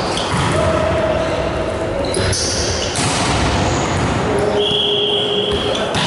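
Volleyball play in a large gym hall: the ball struck and hitting the floor a few times, with players' calls and shouts over constant court noise.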